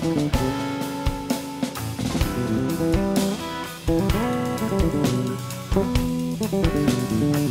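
Live guitar trio playing: semi-hollow electric guitar lines over electric bass and a drum kit played with sticks, with frequent drum and cymbal strokes.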